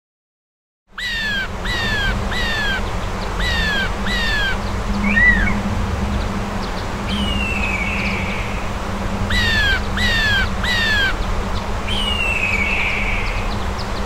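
A crow calling: short downward-sliding calls, mostly in twos and threes, with a couple of longer, rougher calls, over a steady low rumble.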